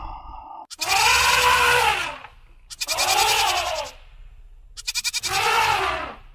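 Three long bleats about a second apart, each rising and then falling in pitch.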